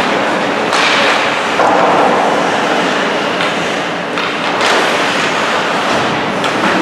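Ice hockey game in a rink: a steady noisy hubbub of the arena with a few sharp knocks from play, the loudest about a second in and about four and a half seconds in.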